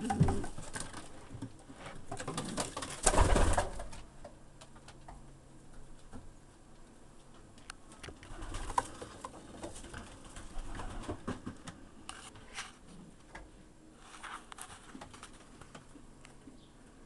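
Racing pigeons cooing, with scattered knocks and clicks and a loud burst of noise about three seconds in.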